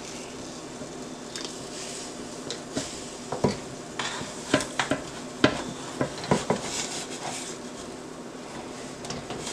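Kitchen tongs knocking and scraping against a nonstick air fryer basket while turning breaded chicken halves, with about ten irregular sharp clicks over a faint steady hiss.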